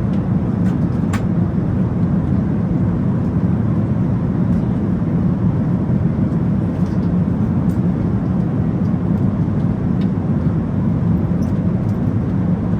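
Steady low rumble of cabin noise inside a Boeing 737-800 airliner, with a few faint clicks.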